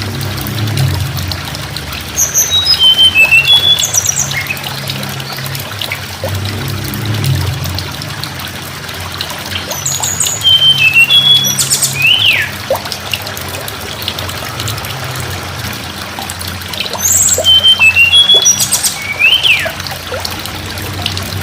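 Hill blue flycatcher (tledekan gunung) singing three phrases about seven seconds apart. Each phrase is a run of clear, high whistled notes stepping downward, ending in a quick rising-and-falling sweep. A steady low hum and hiss runs underneath.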